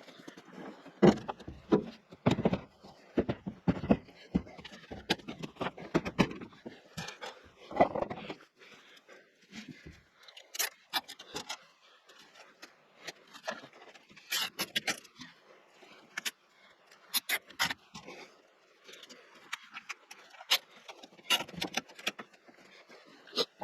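Irregular clunks, knocks and scrapes of loose metal car body parts, such as doors, being handled and shifted about. The strikes come in clusters, thickest in the first eight seconds, with quieter gaps between.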